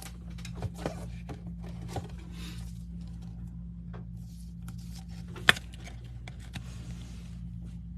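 Trading cards and foil pack wrappers being handled: faint rustling and light clicks over a steady electrical hum, with one sharper click about five and a half seconds in.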